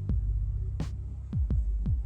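Background electronic music with a deep, steady bass line, punchy kick drums that drop in pitch, and sharp hits on the off-beats.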